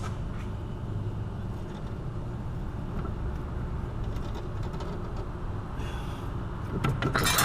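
Steady low background hum, then a quick run of light metallic clinks near the end as metal parts are handled during a wheel hub assembly replacement.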